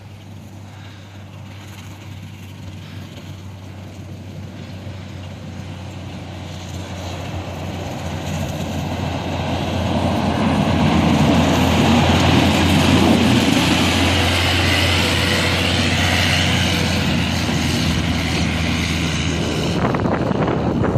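Cat 140M motor grader's diesel engine working as it plows snow, growing louder over about ten seconds as it comes closer and then staying loud, with a rushing hiss over the engine hum.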